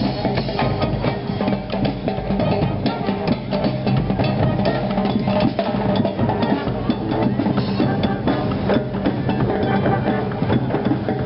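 Street band playing a steady beat of drums and hand percussion under held pitched notes.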